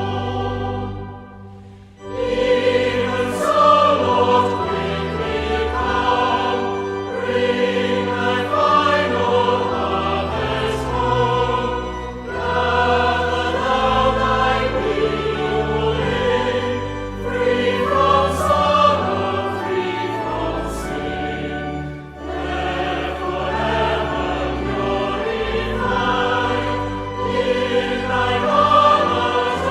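A choir singing a hymn with instrumental accompaniment, breaking off briefly about two seconds in before the next phrase.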